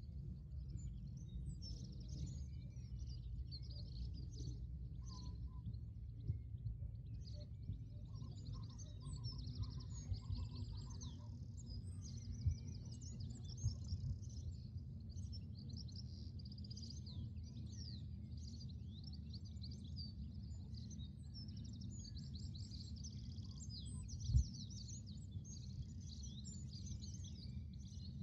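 Dawn birdsong: many small birds chirping and singing, growing busier after the first third, over a steady low rumble. A few soft knocks, the loudest near the end.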